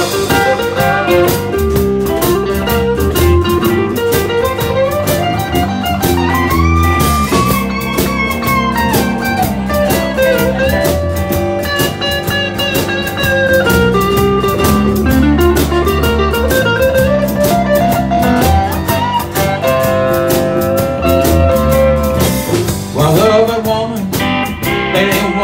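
A live band playing: acoustic guitar, electric bass, electric guitar and drum kit, over a steady beat, with a lead melody that slides and bends up and down in pitch.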